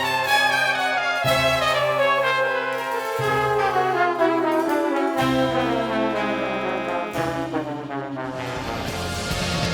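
Music led by brass, playing a long, slowly falling phrase over a bass line that steps to a new note about every two seconds; near the end a louder, fuller section begins.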